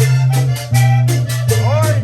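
Loud vallenato music: accordion over a steady bass and quick, even shaker-like percussion, with a voice singing a gliding phrase near the end.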